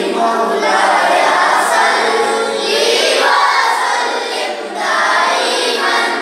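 A chorus of boys chanting a qasida, an Islamic devotional poem, together in sung phrases, with short pauses for breath between lines.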